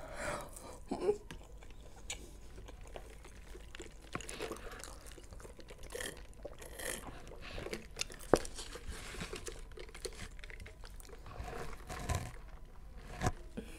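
Close-up eating sounds: chewing French fries, then sipping cola through a straw, with scattered sharp clicks and rustles from the paper cup and packaging.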